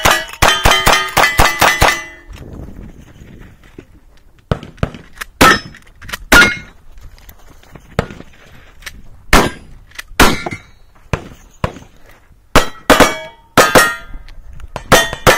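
Gunshots on a steel-target range, each followed by steel plates ringing. A brass-framed lever-action rifle fires about ten shots fast in the first two seconds. Then come spaced single shots and clangs in small groups, with pauses between them.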